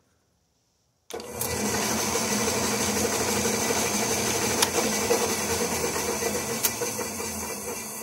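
An early-1960s Craftsman aluminum-body bandsaw switched on, starting suddenly about a second in and running steadily with two light ticks, then beginning to wind down near the end.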